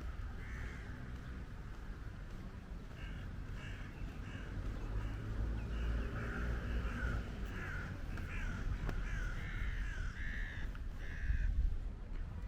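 Birds calling, a quick run of short, harsh, crow-like calls that builds up a few seconds in and stops near the end, over a steady low rumble.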